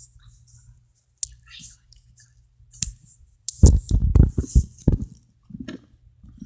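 Hands working Play-Doh on a tabletop: scattered clicks, then a loud run of thumps and pats about three and a half seconds in, and a few softer knocks near the end.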